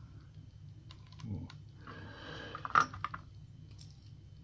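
Small metal clicks and a rustling scrape of pliers working pins out of a euro lock cylinder. There are a few light ticks about a second in, then scraping with one sharp click near the three-second mark.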